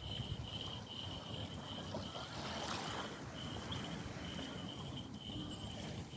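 Wind buffeting the microphone, with a brief louder rush of noise about two and a half seconds in. Over it, a thin high tone pulses on and off about twice a second.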